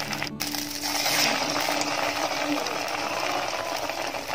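Hot oil sizzling steadily around an egg puff deep-frying in a kadai, the oil still well heated from the fresh drop-in.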